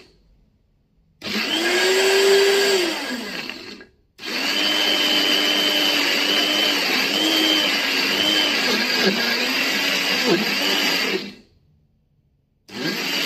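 Small electric mixer grinder running in pulses with its small jar, grinding soaked flax and basil seeds into a thick paste. It starts about a second in, runs a couple of seconds and winds down, then runs for about seven seconds with its pitch wavering under the load, stops, and starts once more near the end.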